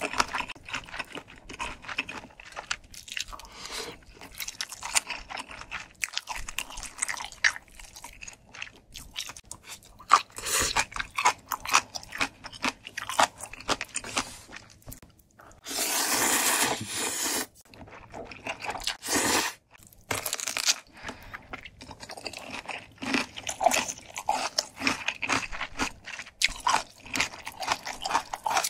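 Close-miked eating of ramyeon noodles with rice cakes and dumplings: steady wet chewing with many small mouth clicks and smacks. Just past halfway comes a loud sustained slurp of noodles, and a shorter one a few seconds later.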